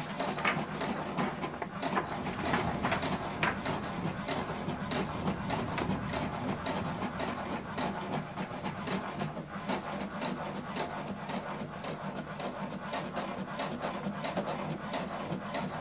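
HP DeskJet 2820e inkjet printer printing a page: a steady low mechanical hum with frequent clicks as the print head carriage shuttles and the sheet feeds through.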